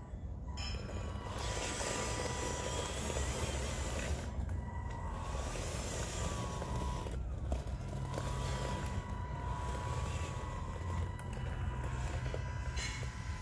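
Radio-controlled Bruder Volvo wheel loader model driving over gravel: its electric drive motor and gearbox whine, the pitch wavering up and down with speed, over a steady low hum and the crunch of gravel under the tyres.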